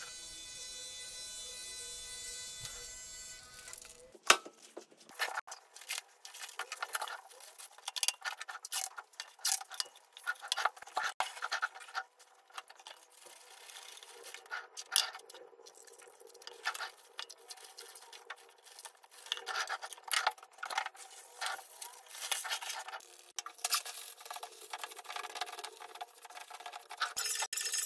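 For about four seconds a steady humming tone with several pitches. Then, after a sudden change, irregular crinkles, clicks and taps from hands handling plastic wrap, paper and a sheet of synthetic practice skin.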